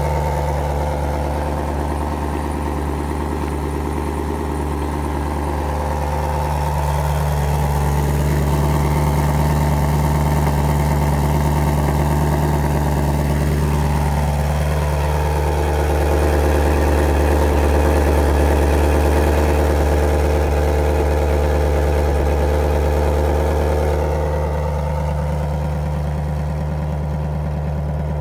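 A 2016 Camaro SS's 6.2-litre LT1 V8 idling steadily after a cold start, heard through the NPP dual-mode exhaust in Tour mode, with two of its valves closed.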